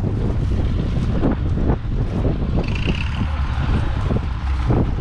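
John Deere 830's 7.7-litre two-cylinder diesel engine idling, with wind buffeting the microphone.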